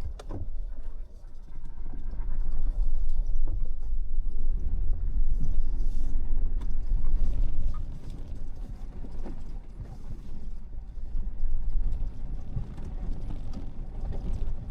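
Tank 500 SUV driving slowly down a rough dirt track, heard from inside the cabin: a deep low rumble with frequent knocks and creaks from the suspension and body as it goes over the bumps, louder for the first half and easing after about eight seconds.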